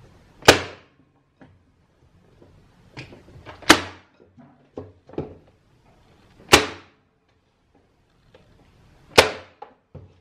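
Corded electric staple gun firing four times, about three seconds apart, driving fasteners through a plywood panel set into a wooden frame's groove. Each shot is a sharp snap, with light clicks of the tool being repositioned between shots.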